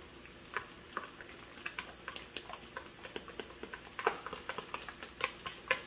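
A spoon tapping and scraping minced garlic out of a plastic container into a frying pan: a quick, irregular run of light clicks that grows busier after the first second or so.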